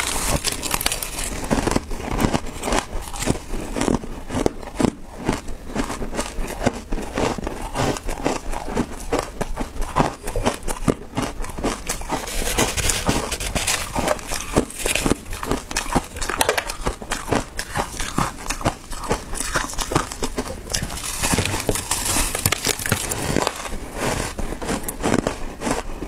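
Close-miked crunching and chewing of frozen coloured crushed ice, a dense run of crackles and crunches throughout.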